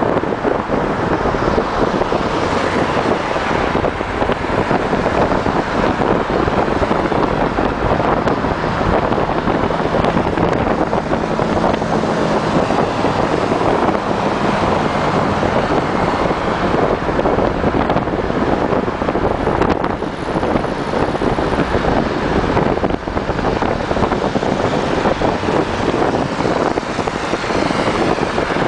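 Wind rushing on the microphone over the steady road and engine noise of a vehicle cruising at highway speed, heard from inside it.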